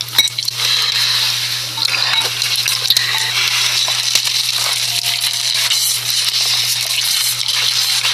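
Close-miked ASMR eating sounds from a noodle video playing back: a dense stream of crisp clicks, crackles and light clinks over a steady low hum.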